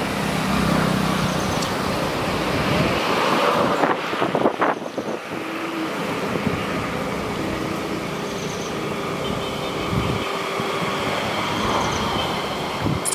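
Steady rushing background noise, with a few short knocks about four seconds in.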